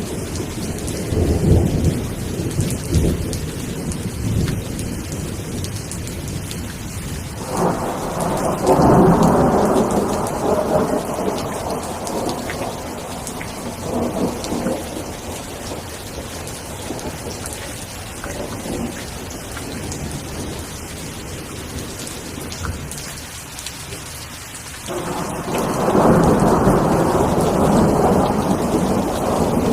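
Steady rainfall with rolling thunder. A long rumble comes in suddenly about a quarter of the way through and fades away. Another begins suddenly near the end and is still rolling as the sound ends.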